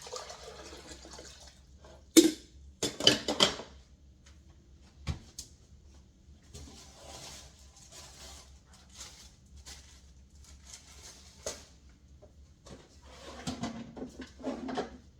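Kitchen handling sounds while coffee is being made: a few sharp clinks and clatters of dishes about two to three seconds in, softer rustling and handling in between, and more clatter near the end.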